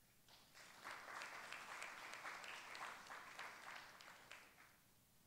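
A small audience applauding faintly. The clapping swells about a second in and dies away near the end.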